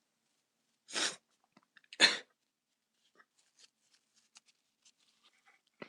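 A man sneezing twice about a second apart, two short noisy bursts with the second louder; induced sneezes. Faint rustles and small clicks follow.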